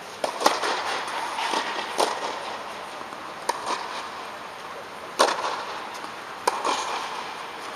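Tennis balls struck by rackets and bouncing on the court: about six sharp pops at uneven spacing, each ringing on briefly in the echo of an inflatable tennis dome.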